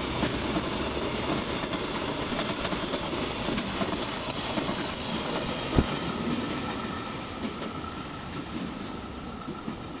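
JR Freight container wagons rolling past on the rails, a steady rumble of wheels and wagons that slowly fades over the second half. One sharp knock about six seconds in.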